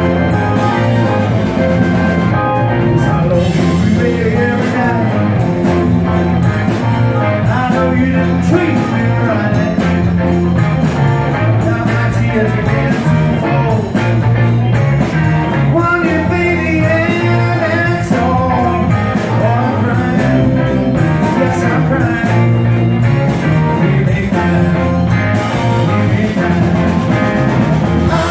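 Live rock band playing: a Nord electric keyboard, a red semi-hollow electric guitar, bass guitar and drums with a steady cymbal beat, and a man singing lead.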